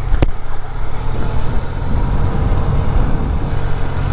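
Yamaha FJ-09's three-cylinder engine running steadily as the motorcycle is ridden, with a single sharp click about a quarter second in.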